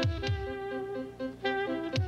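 Background music: held chords over a quick repeating pulse, with low drum hits near the start and again near the end.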